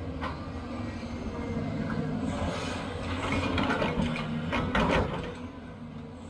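CAT 320 hydraulic excavator's diesel engine running steadily while it dumps a bucket of soil into a steel dump-truck bed. The dirt and stones pour in with a rushing, rattling clatter that builds from a few seconds in, peaks about five seconds in, then falls back to the engine drone.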